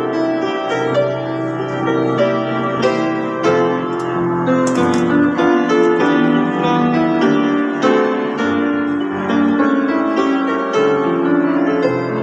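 Grand piano played solo: a flowing melody and chords over low bass notes that are held through the first few seconds.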